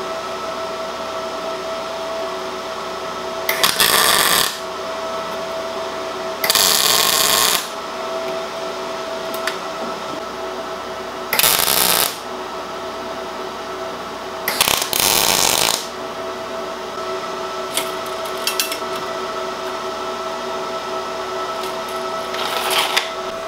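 MIG welder striking four short tack welds on the corners of a square steel-tube frame, each arc hissing for about a second. Between the tacks the welder's cooling fan hums steadily.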